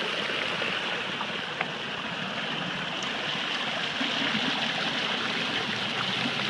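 River water flowing steadily, with one brief click about one and a half seconds in.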